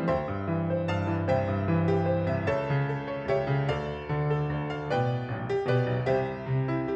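Piano playing a hymn: a string of struck notes and sustained chords, with no singing.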